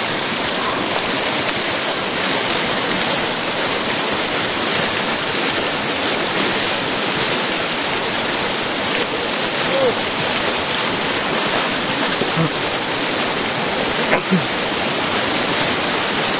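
Rushing river water, a loud, steady, unbroken rush.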